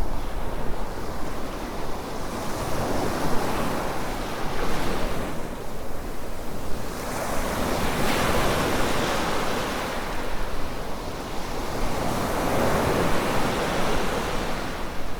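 Surf from small waves breaking and washing up on a beach, the rush swelling and easing about every four to five seconds.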